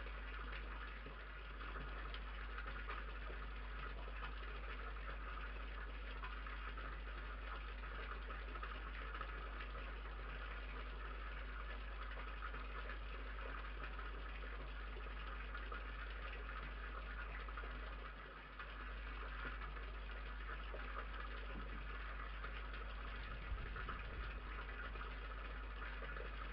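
Steady low electrical hum and hiss from a security camera's microphone, with a few faint knocks near the end.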